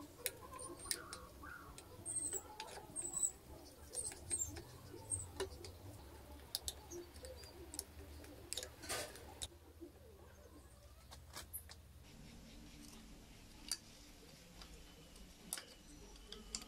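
Screwdriver working on the rusty steering-head fittings of a motorcycle: scattered metallic clicks, taps and scrapes, busiest in the first ten seconds and sparser after that, with short high squeaks early on.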